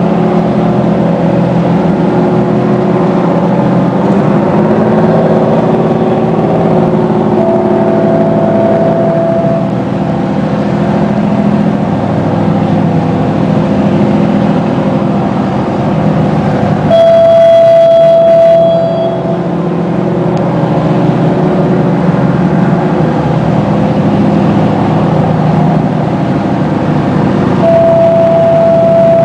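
Detroit Diesel engines of a crew boat running steadily at low power while it holds against the platform. A fog horn sounds three times, each a steady tone of about two seconds, roughly every ten seconds.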